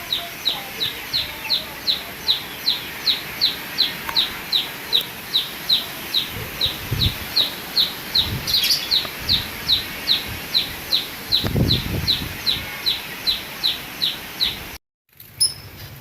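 A bird calling one short, high, slightly falling note over and over, evenly at about three to four a second, until it cuts off near the end.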